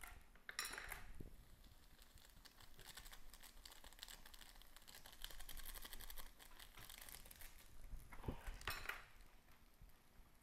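Faint crinkling of small plastic instant-noodle seasoning sachets being handled and cut open, with louder rustles about half a second in and again near the end.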